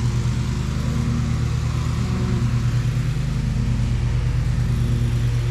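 Lawn mower's small petrol engine running steadily at an even speed.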